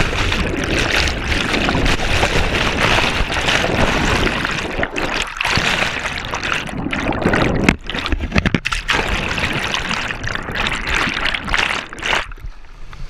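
Whitewater of a Class 5 river rapid rushing and churning loudly around a helmet camera that is swamped in the rapid, the noise briefly cut by short muffled dropouts as it goes under. The noise thins out near the end.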